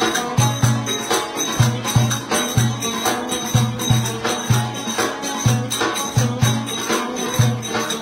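Davul and a plucked long-necked lute playing Turkish folk dance music: deep drum booms about twice a second with sharp stick clicks in between, under a running lute melody.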